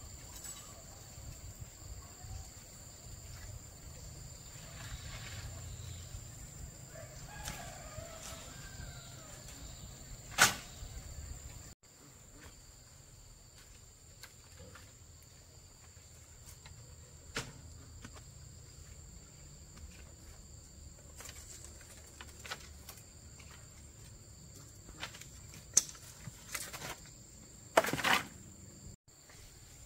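Insects chirring steadily in the background, broken by a few sharp knocks, the loudest about ten seconds in and a short clatter near the end.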